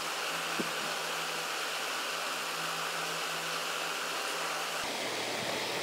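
Steady background hiss with a faint low hum, with no distinct event; the hum stops and the hiss changes slightly about five seconds in.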